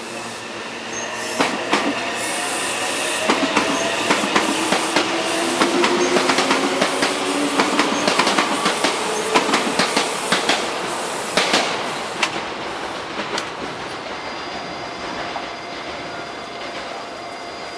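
A train passing: its wheels clatter over rail joints in a quick run of clacks, with thin squealing tones over the rumble. The clatter thins out about 13 seconds in.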